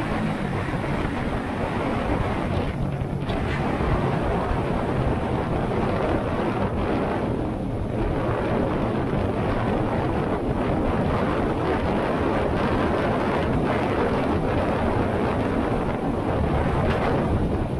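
Wind rushing over the microphone of a moving motorcycle at a steady cruising speed, with the Honda Shadow 125's small V-twin engine running underneath.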